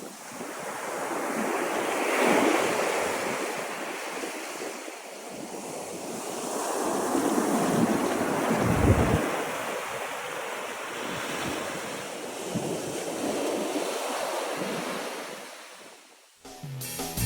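Wind gusting over the microphone, swelling and easing several times, with a hard low buffet about nine seconds in. A song with guitar starts right at the end.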